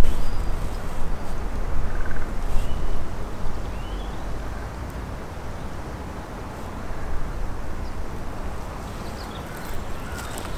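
Wind rumbling on the microphone, heavier in the first three or four seconds, with a few short chirping bird calls.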